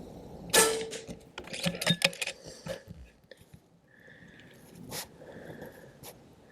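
Handling noises: a sharp knock about half a second in, then a quick run of clicks and light rattles, with a few scattered clicks later on.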